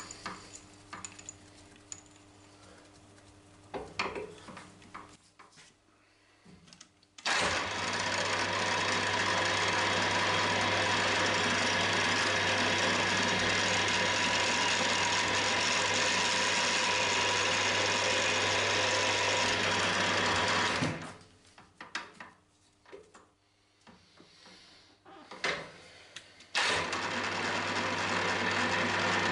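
Milling machine spindle drilling a T-nut held in a vice: a loud, steady machine run with a high tone lasting about fourteen seconds. It stops for a few seconds of clicks and knocks from tool handling, then the spindle starts again near the end. The first seconds hold only scattered clicks of tooling being handled.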